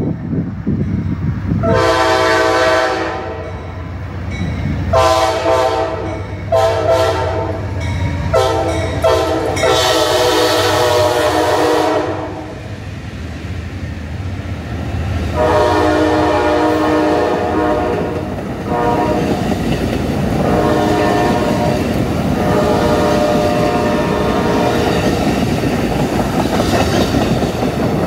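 A GE P42DC Genesis diesel locomotive's air horn sounding the grade-crossing signal, long, long, short, long, as an Amtrak Superliner passenger train passes at speed, with the rumble and clatter of wheels on rail. A second four-blast horn sequence follows about halfway through as the train moves away.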